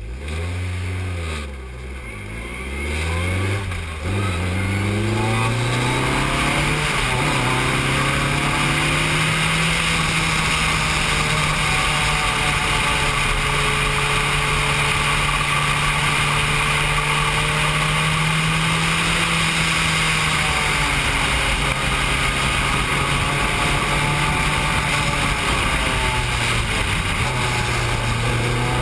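Formula 3 single-seater race car engine heard from the cockpit. Its revs swing up and down in blips for the first few seconds, then climb as the car pulls away. After that it runs at a steady high pitch with brief dips.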